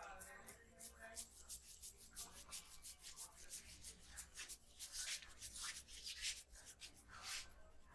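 A barber's hands rubbing over a customer's hair and scalp in a head massage: a quick run of soft rubbing strokes, several a second, strongest in the second half.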